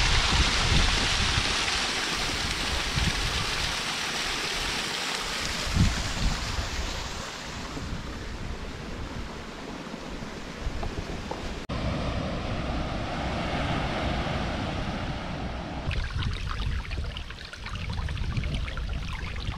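Sea surf washing onto a beach, with wind buffeting the microphone. The sound changes abruptly twice, about twelve seconds in and again near the end.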